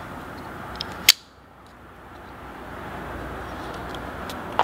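A single sharp click about a second in, from small metal parts of a folding knife being handled during reassembly, over a steady hiss; a second, smaller click comes near the end.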